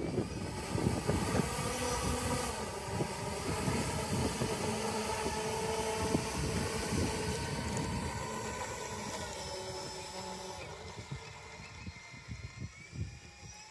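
Four small brushless electric motors spinning three-blade propellers on a large RC model airliner, a steady multi-tone whine over a rough rumble as the model taxis on asphalt. The sound fades over the last several seconds as the model moves off, and the pitch shifts a little near the end as the throttle changes.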